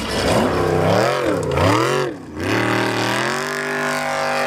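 Formula Offroad hill-climb buggy engines revving hard at full throttle: the pitch swings up and down several times, then after a short dip an engine revs up and holds at a high, steady pitch.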